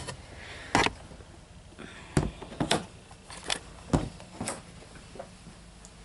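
A run of about six sharp knocks and clicks over four seconds, from handling a glass-fronted reptile enclosure as its doors are shut.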